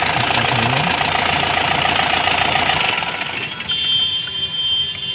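Mahindra Bolero's diesel engine idling with a steady, even clatter, then cutting out about three seconds in.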